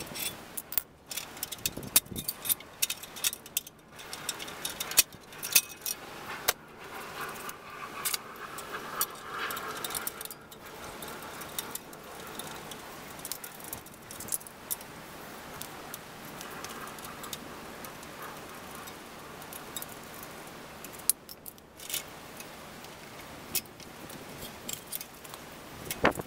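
Metal tools clinking and rattling against the axle nuts of a city bicycle's rear hub, with sharp clicks that are most frequent in the first several seconds and sparser later. This is the hub being adjusted to take out play in the bearings.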